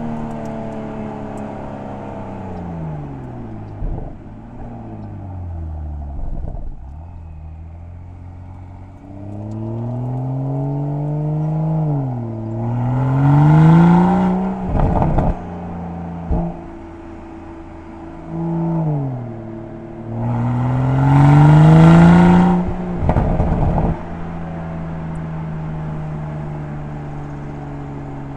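BMW M340i's turbocharged 3.0-litre inline-six through the M Performance Exhaust, heard at the rear bumper: the engine note climbs twice, and on each lift-off the exhaust gives a loud burst of crackles and pops. Between the climbs it runs steadily, with a few single pops.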